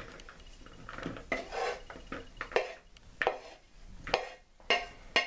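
A utensil scraping cooked ground beef off a plate into a mixing bowl: a run of irregular scrapes and knocks against the dishes.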